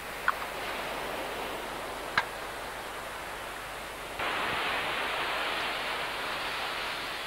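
Steady hiss of open-air beach ambience, wind and surf, which steps up louder about four seconds in. Two short high squeaks come in the first couple of seconds.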